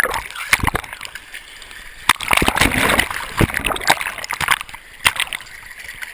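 River rapids splashing and churning around a GoPro in its waterproof housing as it dips in and out of the surface, with bubbly gurgling and many sharp splashes and knocks. The rush grows louder and frothier about two seconds in and eases near the end.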